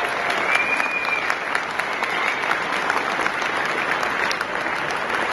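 Audience applauding: many hands clapping steadily, with a brief high-pitched tone above the clapping about half a second in.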